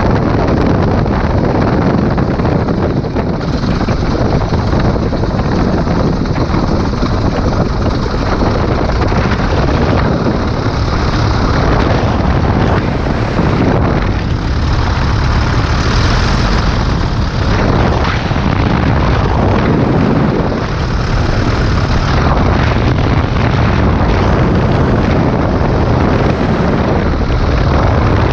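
Corben Baby Ace light plane's engine and propeller running steadily while it taxis on grass, loud throughout, with wind noise buffeting the microphone.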